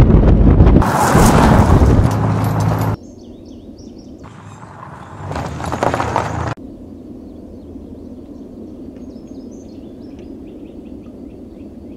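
Two loud bursts of noise, each cut off abruptly: the first lasts about three seconds, and the second swells for about two seconds around the middle. In the quieter stretches, birds chirp over a steady outdoor background.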